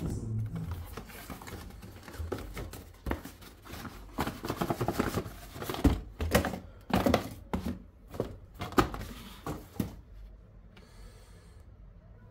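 Cardboard retail packaging of a GoPro camera being handled and opened: a run of rustles, scrapes and sharp knocks as the box and sleeve are pulled apart and the moulded pulp tray is taken out, loudest around six seconds in and dying down after about ten seconds.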